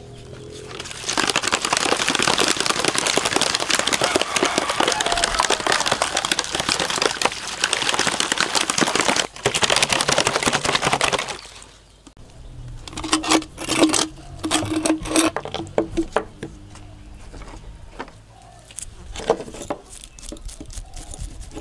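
Water sloshing hard in a plastic bottle shaken for about ten seconds with rusty pliers inside, washing the mud off them; it stops abruptly. Then a run of short scraping strokes as a toothbrush scrubs the rusty pliers.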